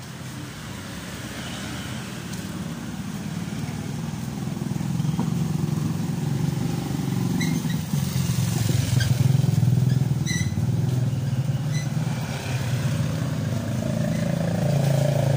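Small motorcycle engine running steadily while riding along a street, growing louder over the first several seconds. There are a few brief high-pitched tones around the middle.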